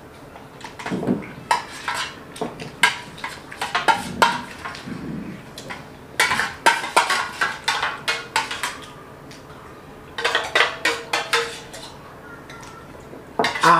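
Steel spoons clinking and scraping against stainless steel plates as two people eat, in quick runs of clicks broken by short pauses.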